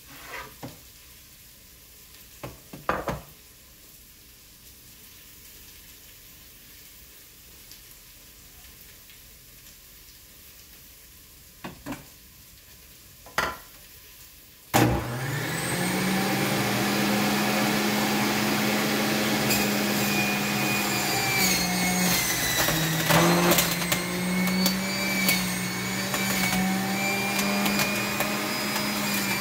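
A few light knocks and clicks, then about halfway through a Hamilton Beach centrifugal juicer's motor switches on suddenly with a quick rising whine and settles into a steady running whine. In the later seconds its pitch dips and wavers as green produce is pushed down the chute and shredded.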